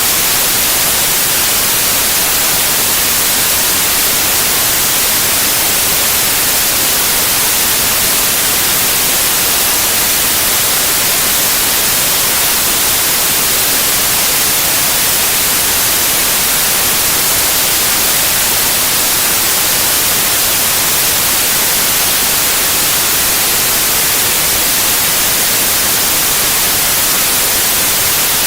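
Steady white noise: an even, unchanging hiss, strongest in the highest pitches.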